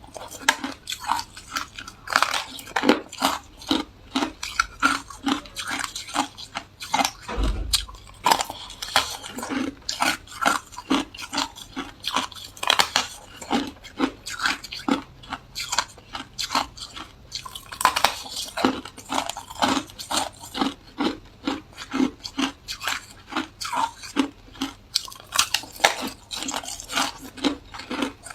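A person chewing ice, with sharp crunches a few times a second. There is a low thump about seven seconds in.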